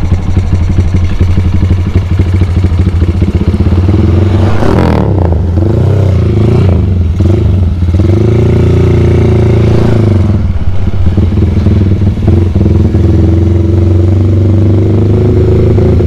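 Honda Tiger's single-cylinder engine, running a PWK 35 carburettor, pulling under way. The engine note drops and picks up again about five seconds in, as at a shift or throttle change, then holds fairly steady and rises a little near the end.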